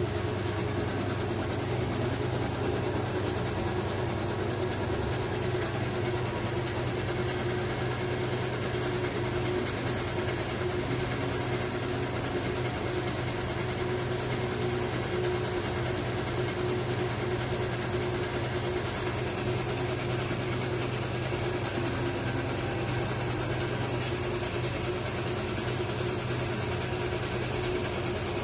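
Barcode sticker making machine running with a steady, even hum from its motor, no change in speed.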